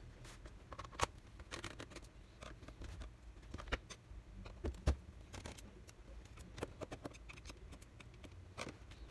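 Irregular small clicks, taps and scrapes from hand tools and fingers working on the plastic case and screws of a Sony Vaio laptop being disassembled, with two sharper knocks about one second and five seconds in.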